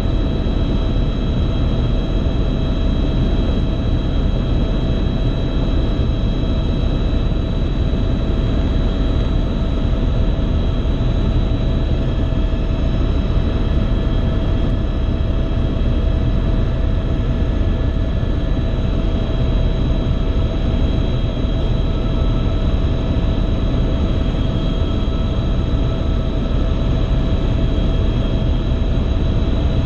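Helicopter in flight heard from inside the cabin: a steady engine whine over a deep rotor drone.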